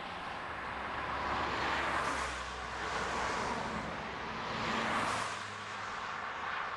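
Cars passing on a road: steady tyre and engine noise that swells as a car goes by, twice, about two and five seconds in.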